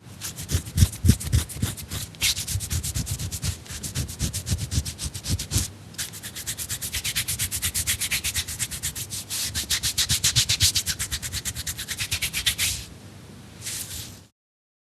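A person scratching their skin hard in rapid, even strokes, about six a second, with a short break about six seconds in. The scratching stops near the end, then one brief last scratch follows.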